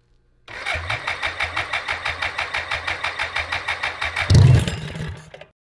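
Freshly reassembled 1985 BMW K100 engine, a fuel-injected inline-four laid on its side, cranked by its electric starter in even pulses, about seven a second. About four seconds in it fires with a loud burst, then dies away within about a second.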